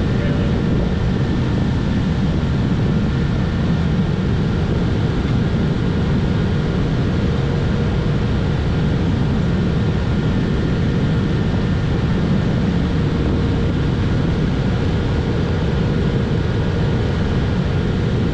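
Steady low rumbling noise with a few faint steady tones above it and no distinct events.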